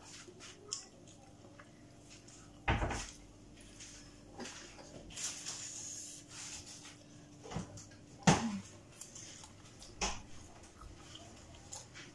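Scattered sharp knocks and clicks of kitchen activity over a faint steady hum. The loudest knock comes a little after eight seconds, with others about three seconds in and near ten seconds.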